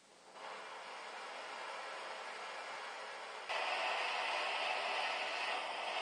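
Propane hand torch on a BernzOmatic cylinder burning with a steady hiss, being used to heat a copper pipe joint for soldering. About three and a half seconds in the hiss abruptly gets louder.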